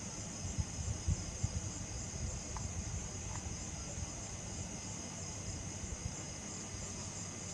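Night-time crickets chirping in a continuous, steady high trill, with soft low bumps and rumble near the start.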